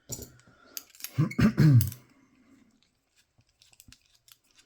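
A short throat-clearing sound, with a few sharp clicks before it and faint scattered ticks after it as the opened padlock is handled.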